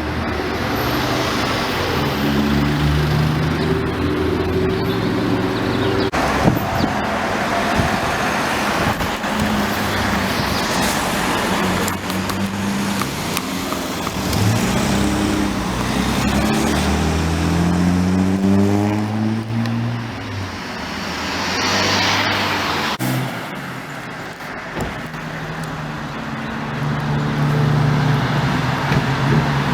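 Cars accelerating past, their engine notes rising and stepping up through gear changes, over steady traffic noise.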